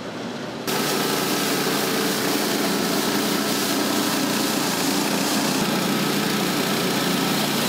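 A small engine running steadily under a loud hiss, starting abruptly about a second in.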